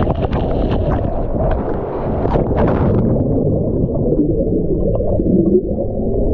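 Water rushing and splashing in an enclosed water-slide tube as the rider slides down. About three seconds in, the rider plunges into the landing pool and the sound turns suddenly muffled: a low underwater rumble of churning water and bubbles.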